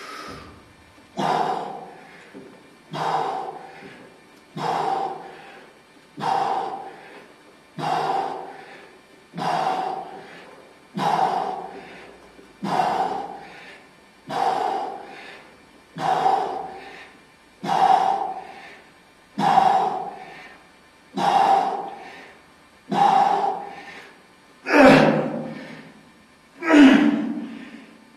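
A man breathing out forcefully with each repetition of a heavy one-arm dumbbell row, about one breath every second and a half or so. The breaths grow louder and more strained near the end of the set.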